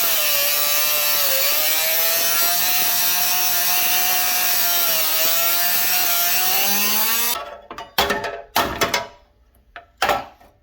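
A power cutting tool cuts through a sheet-steel floor pan, its whine dipping in pitch as it bites, and stops abruptly about seven seconds in. A few separate metal clunks and knocks follow.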